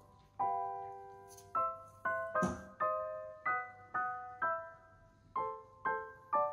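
Background piano music: single notes and chords struck one after another, each ringing and fading, at an unhurried pace. There is a brief thump about two and a half seconds in.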